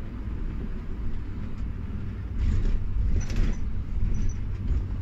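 Intercity coach driving on a wet road, heard from inside the cabin: a steady low rumble of engine and road noise, with two brief hisses about two and a half and three and a half seconds in.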